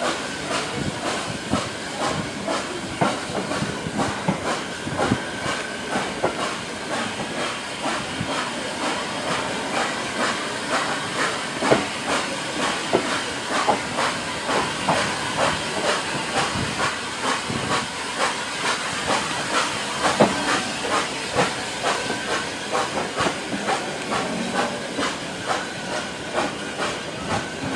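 Hunslet Austerity 0-6-0ST saddle-tank steam locomotive hauling its train at about 5 mph, heard from a carriage window: a steady hiss of steam with many small knocks and clanks.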